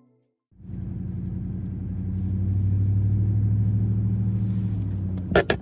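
Steady low drone of a vehicle's engine and road noise heard from inside the cabin while driving. It comes in after a brief silence about half a second in. A couple of sharp knocks come near the end.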